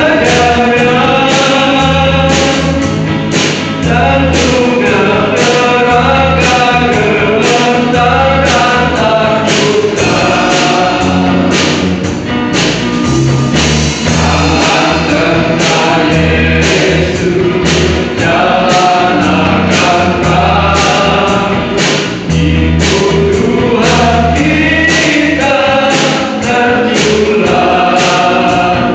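A group of men singing a church song together into microphones, over an accompaniment with a steady beat and repeating bass notes.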